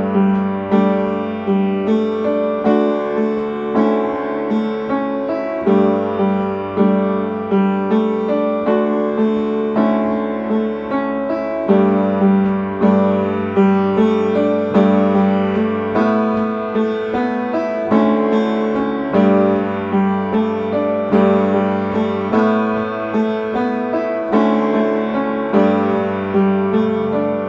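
Upright piano playing a simple chord accompaniment with both hands, the chords struck on a steady beat.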